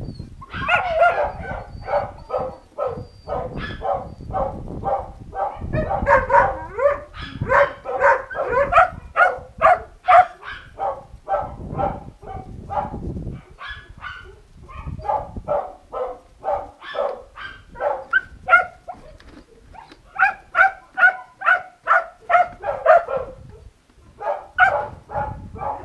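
Young dogs barking in long runs of short, sharp barks, about two a second, with a couple of brief pauses.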